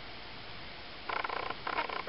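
Ocicat kitten mewing twice, two short high-pitched calls about a second apart starting about a second in.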